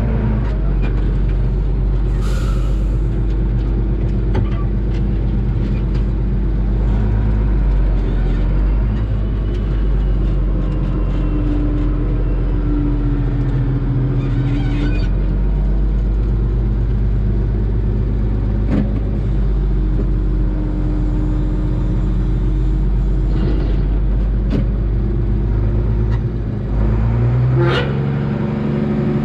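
Heavy diesel farm machinery running steadily with a low, even engine hum; the engine note shifts near the end.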